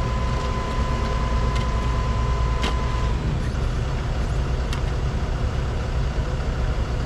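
Excavator diesel engine running steadily while the machine is held raised on its boom, with a thin steady whine that stops about three seconds in and a couple of sharp clicks.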